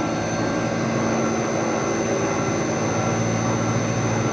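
Haas VF3 CNC vertical machining center running: a steady mechanical hum with a thin, constant high whine.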